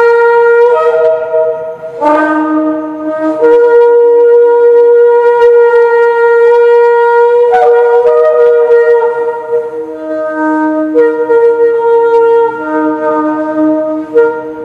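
Yemenite shofar, a long spiralled horn, blown loudly in sustained notes that leap back and forth between a low note and a higher one, with slurred changes and brief breaks, stopping near the end.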